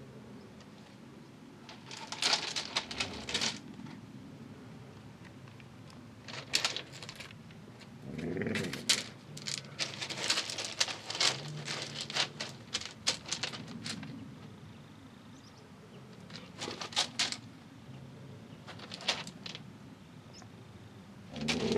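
Bursts of crunching and scuffling on loose gravel, coming in clusters a second or two long with pauses between, with a few short low sounds from an animal, one about eight seconds in and one near the end.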